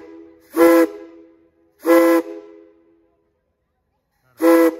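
Steam locomotive chime whistle blown in three short toots, each a steady chord of several notes lasting about half a second, the last one near the end.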